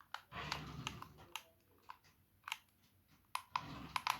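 Toy radio-controlled rally car driven in two short spurts, its small electric motor and wheels running for about a second each, once near the start and again near the end, among scattered light clicks and knocks.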